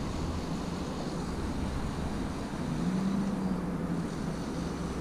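Steady outdoor background noise: a low rumble with a light hiss, joined about three seconds in by the low steady hum of a distant vehicle engine.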